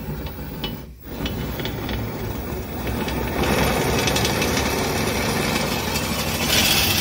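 Power drill running as it turns a threaded rod inside a steel strut post, driving the nut and wire bracket along it. A brief pause comes about a second in, and it runs louder through the second half.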